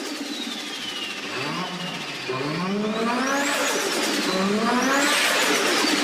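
A car engine accelerating hard through the gears: the revs climb, drop back at each shift and climb again, three times, with a high whine rising and falling with them. It gets steadily louder as the car comes closer.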